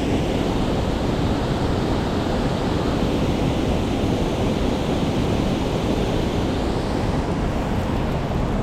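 Mountain stream rushing over rocks: a steady wash of running water.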